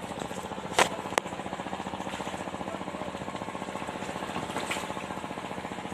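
A small engine running steadily with a fast, even beat. A knock comes just under a second in, and a sharp click follows a moment later.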